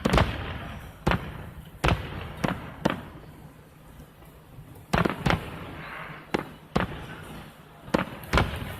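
Fireworks shells bursting, about a dozen sharp booms at irregular intervals, several in quick succession, with a lull of a second or so around the middle.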